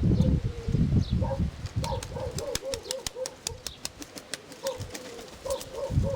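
Nikolaev pigeons cooing, short repeated coos, with a run of sharp clicks in the middle. Wind buffets the microphone at the start and again near the end.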